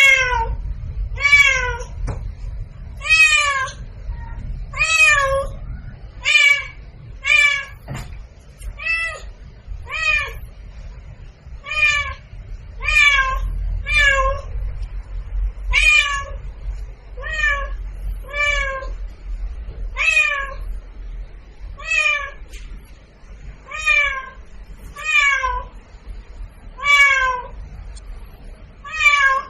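A cat meowing over and over: short meows about one every second and a half, each rising and then falling in pitch, over a low steady hum.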